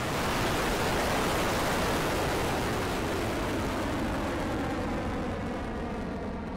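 Electron rocket's nine Rutherford first-stage engines at liftoff: a dense, steady rushing noise that slowly fades as the rocket climbs away, turning hollow and phasing near the end.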